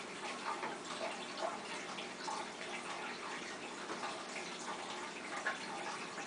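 Faint rustling and small taps of jute twine and card stock being handled as the twine is tied around a paper flap, over a steady hiss.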